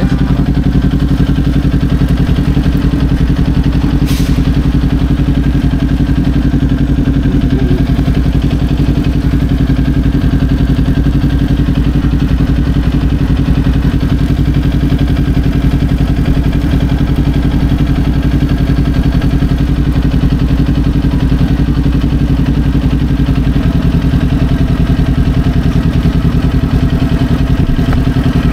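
Kawasaki Ninja 400's parallel-twin engine idling steadily at an unchanging pitch, with a single short click about four seconds in.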